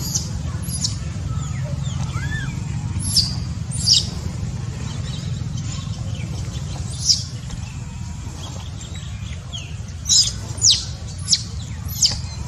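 Short, high chirps that each drop quickly in pitch, a few in the first half and a cluster of five in the last few seconds, over a steady low rumble.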